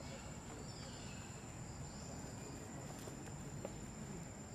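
Insects droning in a steady, unbroken high-pitched tone over faint low background noise.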